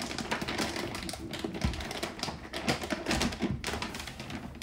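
Heavy-duty plastic wrapping crinkling and crackling as it is handled and pulled away by hand, with a dull thump about one and a half seconds in.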